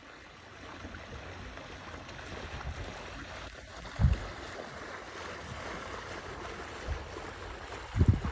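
Steady rush of river water around a passing wooden sailing yacht, with wind on the microphone. Two loud low thumps of wind buffeting come about four seconds in and near the end.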